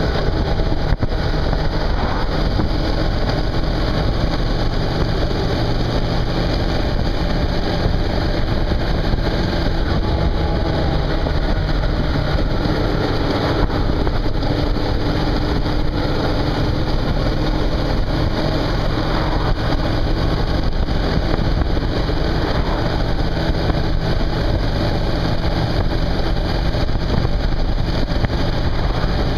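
Suzuki V-Strom 650's V-twin engine running at a steady cruise, under an even rush of wind and road noise from the moving motorcycle.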